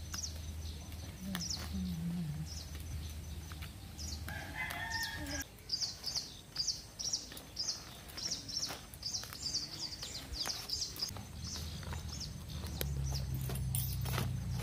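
A rooster crows once about four seconds in, followed by a long run of quick, high-pitched bird chirps, several a second. Leaves crackle and rustle as they are handled, and a low hum comes in near the start and again near the end.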